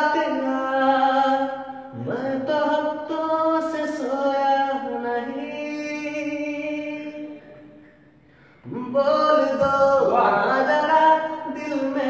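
A man singing a Hindi film song unaccompanied, drawing out long held notes with a slight waver. The singing fades to a short breath pause about eight seconds in, then he sings on.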